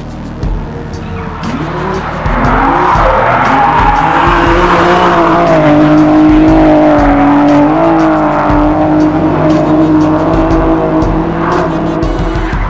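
Supercharged BMW M3 drift car's engine held at high revs, its pitch rising and falling with the throttle as the car slides, with tyres squealing. The engine comes in about two seconds in and eases off near the end.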